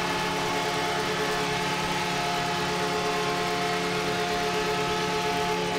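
Arena goal horn blowing one long steady chord of several held notes, signalling a home-team goal, over a cheering crowd.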